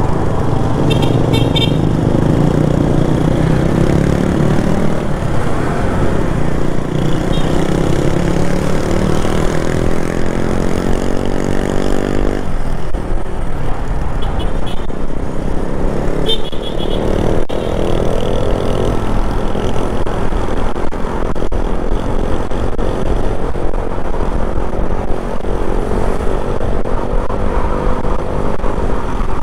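Motorcycle engine running under way, its pitch climbing steadily as it accelerates for several seconds, dropping suddenly about halfway through at a throttle-off or gear change, then climbing again. Short horn toots sound near the start and again in the middle.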